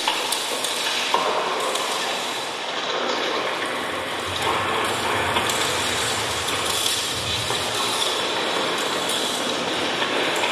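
Live experimental electronic music built from phase-shifting short loops: a dense, steady, noisy texture with scattered clicks. A low rumble comes in about four seconds in and fades out about four seconds later.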